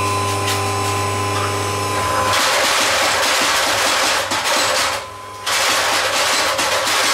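Steady electric hum, then about two seconds in a homemade motor-driven power hammer starts running, beating quickly and evenly on hot steel stock. It breaks off for a moment near five seconds, then picks up again.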